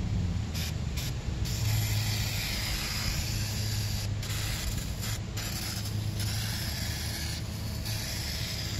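Aerosol can of engine degreaser spraying into a motorcycle's rear drum brake hub: a hiss in several long bursts with short pauses between them.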